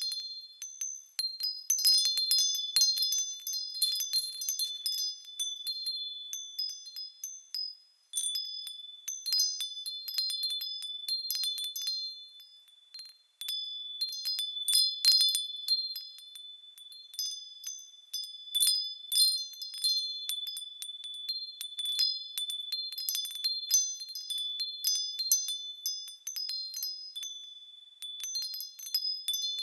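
Small high-pitched bells chiming as they swing, several tones struck irregularly and ringing over one another. The ringing dies nearly away twice, about a quarter and about halfway through, and starts again abruptly each time.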